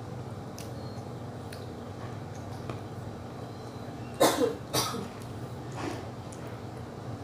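A girl coughs twice in quick succession about four seconds in, then once more, more weakly, about a second later.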